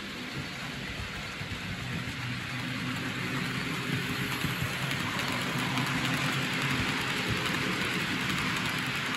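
OO gauge model diesel locomotive and its rake of TEA oil tanker wagons running on the layout's track: a steady hiss and rattle of metal wheels on rail with a faint motor hum. It grows louder from about two seconds in as the train comes past.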